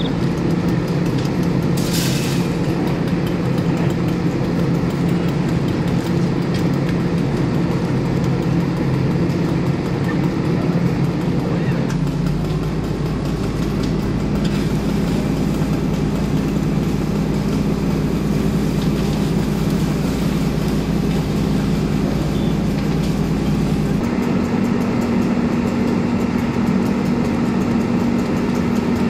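An engine running steadily at constant speed, a continuous drone with a low hum whose pitch steps slightly about twelve and twenty-four seconds in. A short hiss about two seconds in.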